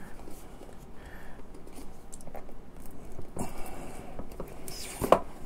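Cardboard mouse box being handled and slid open out of its sleeve: faint rustling and light scraping, with a brief scrape about three and a half seconds in and a sharp tap near the end.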